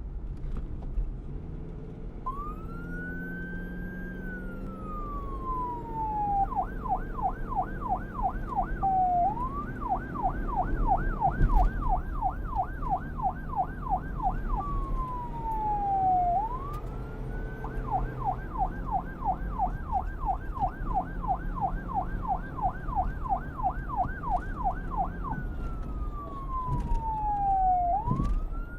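Police car siren, starting about two seconds in, switching between a slow wail that climbs and then glides down over several seconds and a fast yelp of about four up-and-down sweeps a second. A low rumble runs underneath.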